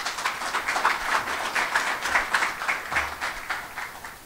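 Audience applause, swelling and then fading away near the end.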